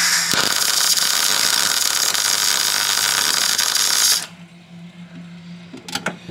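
MIG welder laying a weld, a loud steady crackling hiss for about four seconds that stops abruptly, followed by a couple of short clicks.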